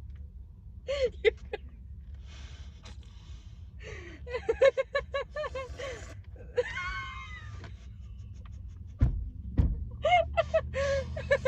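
Young women's voices gasping, squealing and giggling in short bursts, over a steady low hum inside a car; two dull thumps about nine seconds in.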